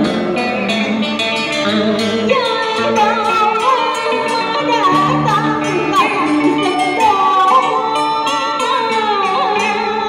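Cải lương singing: a woman's voice in a long, sliding, ornamented vocal line over plucked electric guitar accompaniment.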